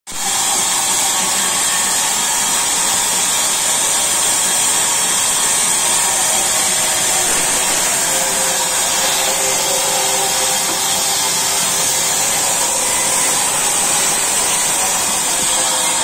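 A sawmill's log saw running and cutting through a log. The sound is a loud, even whirring with a strong high hiss, steady throughout.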